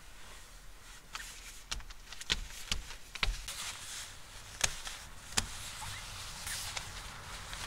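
A scattered run of sharp clicks and knocks, seven or eight of them at irregular spacing over about four seconds, over a faint steady hiss.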